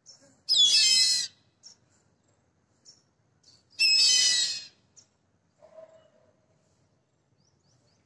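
Black kite calling twice, about three seconds apart: two high-pitched whistled calls, each just under a second long.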